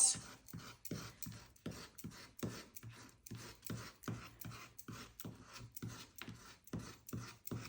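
A fork's tines dragged over a sheet of sugar modelling paste again and again to texture it, short scraping strokes at about three a second.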